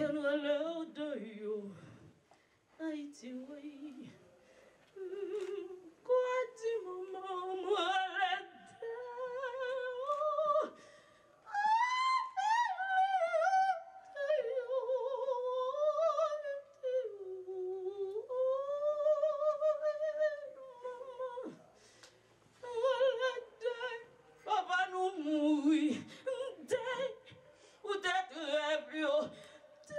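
A solo voice singing slowly and unaccompanied, in drawn-out phrases with long held, wavering notes and short pauses between them.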